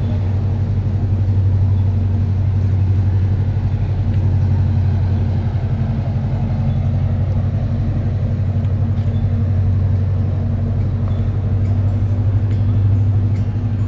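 A steady low engine hum, as of a motor vehicle running close by, holding even throughout, with a few faint ticks near the end.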